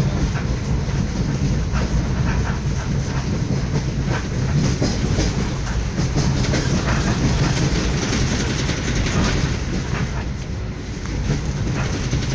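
Passenger train running at speed, heard from inside the carriage: a steady rumble of wheels on the rails with scattered clicks from the track.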